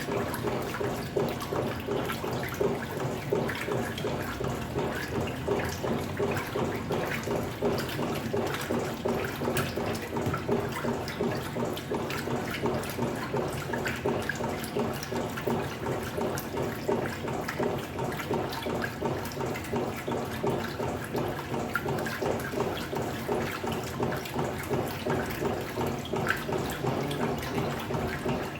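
Electrolux Turbo Economia 15 kg top-loading washing machine washing a load: water sloshing and churning in the tub over a steady motor hum.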